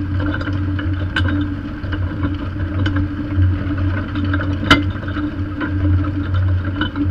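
Massey Ferguson 7485 tractor's diesel engine running steadily under ploughing load, heard from the Lemken furrow press trailing behind the plough. Scattered sharp clicks and knocks come from the press rings rolling over the soil, one louder click about two-thirds of the way through.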